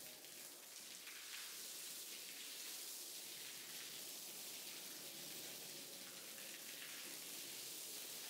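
Water spraying steadily onto a wet rug during washing, an even hiss.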